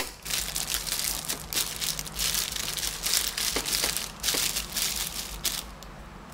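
Thin clear plastic bag crinkling as hands fold and smooth it down over the mouth of a glass jar, in irregular rustles that die down near the end.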